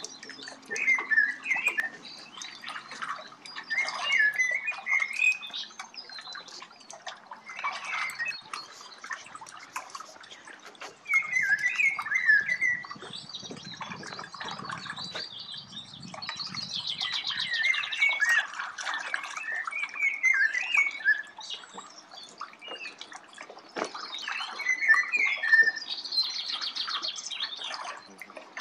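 Small birds singing in short chirping phrases, repeated every few seconds, with a higher buzzy trill twice.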